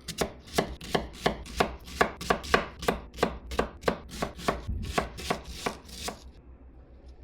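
Kitchen knife chopping an onion on a cutting board in quick, even strokes, about four a second, stopping about six seconds in.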